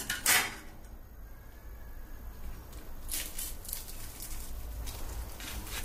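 Crisp batter crust of deep-fried cabbage rolls crackling and crunching as they are torn open by hand, in several clusters of small crackles from about three seconds in. A single short, louder sound comes just after the start.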